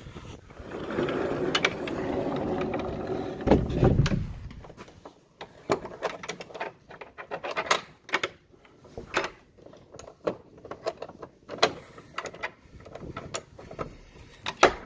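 A sliding barn door rolling along its track for about three seconds, then a run of metal clicks and knocks from its latch and hardware.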